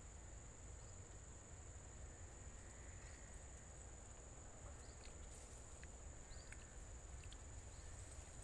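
Faint, steady high-pitched insect trill from the surrounding vegetation, with no other clear sound.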